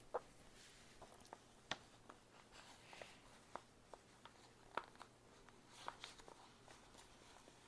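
Faint handling of paper journal pages, with scattered light taps and clicks.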